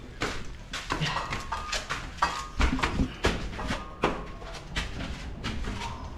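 Glass liquor bottles knocking and clinking against each other as they are carried, a quick irregular series of knocks with short ringing tones.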